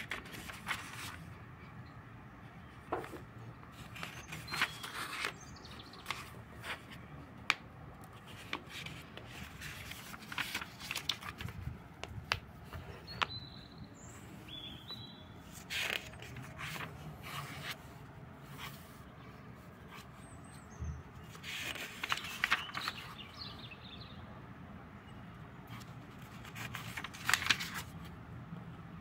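Pages of a thin-paper notebook being turned and handled: short papery rustles and scrapes that come in clusters every few seconds.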